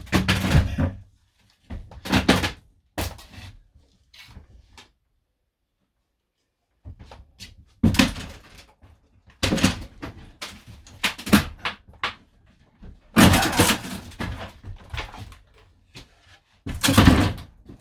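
Irregular knocks, bangs and scraping from hands-on repair work in a small enclosed space, coming in uneven clusters. The sound drops out to complete silence for about two seconds a few seconds in.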